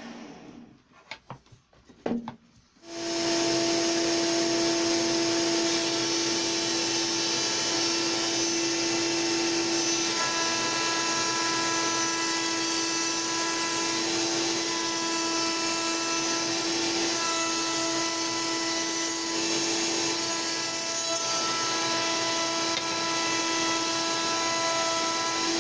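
A few light knocks of wood being handled, then about three seconds in a table-mounted router switches on and runs steadily at high speed with a strong, even whine, as thin pine bead strips are fed past the cutter.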